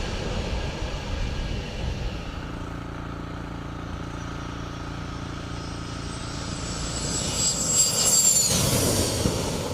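Fighter jet engine noise: a steady jet rumble that swells as a jet passes close about eight seconds in, its high whine dropping in pitch as it goes by.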